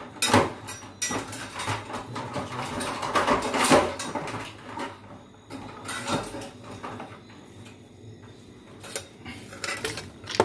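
Irregular clattering knocks and scrapes from handling live land crabs with metal tongs at an aluminium cooking pot, the busiest stretch about three to four seconds in.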